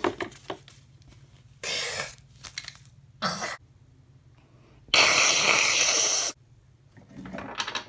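A person making breathy, wheeze-like vocal noises without words: short ones about two and three seconds in, a louder one lasting over a second from about five seconds, and a rising one near the end.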